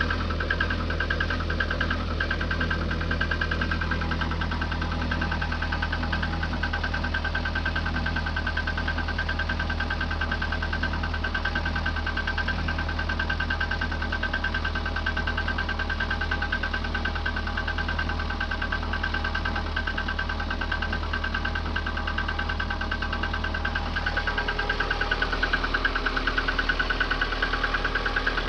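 VAZ 2110 16-valve four-cylinder engine running with a fast, steady knock after a cold start at −10 °C, a cold-engine knock that the owner says dies away as the engine warms up. About 24 seconds in, the engine note shifts and grows a little louder.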